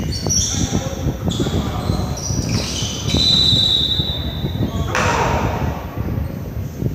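Indoor basketball play on a hardwood gym floor: sneakers squeaking in many short high chirps and a ball bouncing, with players' and spectators' voices echoing in the hall.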